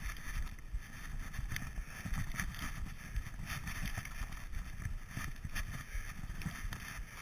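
Skis running through deep powder snow, heard muffled through a GoPro Hero2 action camera: a constant low rumble with irregular soft thumps and scrapes.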